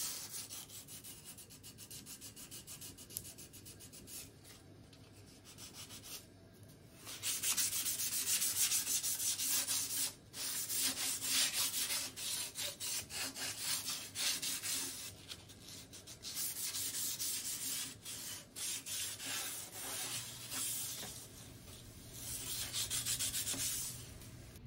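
Hand sanding of stripped bare wood with a sanding sponge: quick back-and-forth rasping strokes in stretches with short pauses, working the last of the old finish out of the corners and carved details.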